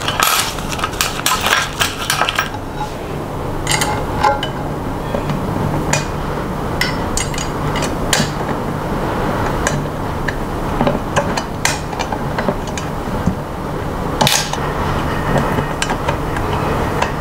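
Metal hand tool turning screws into an Ender-3 3D printer's aluminium frame, with scattered sharp metallic clicks and clinks as the tool and screws knock against the metal.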